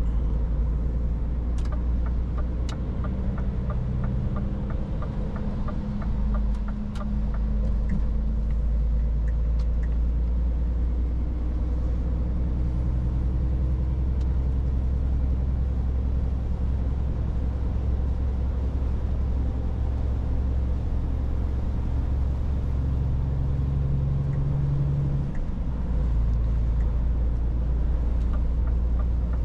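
Scania S450 truck's 13-litre straight-six diesel running steadily at a cruising speed of about 82 km/h: a constant low drone with road noise, heard from the driver's seat. A run of light, evenly spaced ticks comes through for a few seconds near the start.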